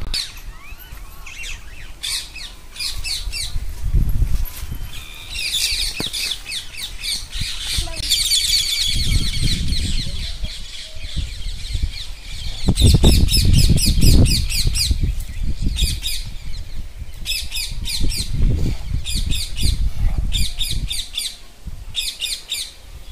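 Birds calling in quick runs of sharp repeated notes, a run every second or two, over a low rumble that rises and falls.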